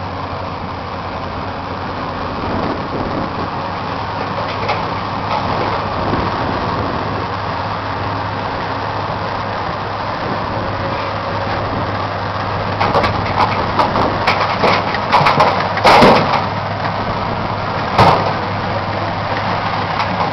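Heavy diesel engines of a John Deere 350D LC excavator and a Caterpillar 735 articulated dump truck running steadily. Past the middle, a bucket load of earth and rocks is dumped into the truck's steel bed, with a clatter and two loud bangs near the end.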